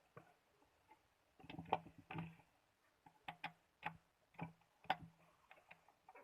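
Irregular light clicks and taps of small parts and hand tools being handled, with a short flurry of clatter about a second and a half in.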